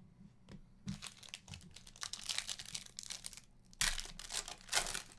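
Foil wrapper of a Prizm Hobby trading card pack crinkling and tearing as it is opened by hand. The rustle comes in two spells, the second starting sharply near the four-second mark and loudest.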